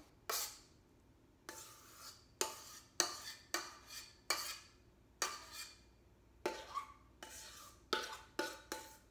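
Spoon scraping and knocking against a stainless steel mixing bowl while cream cheese filling is scooped out onto dough: irregular sharp clinks, about two a second, the bowl ringing briefly after several of them.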